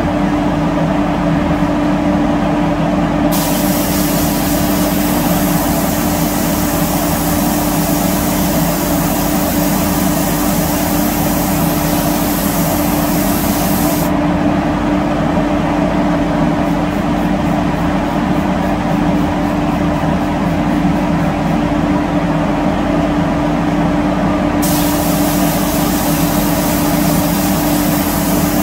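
Spray gun hissing as it sprays chrome solution, over a steady machine hum. The hiss is off for the first three seconds, runs for about ten seconds, stops for about ten more, and starts again near the end.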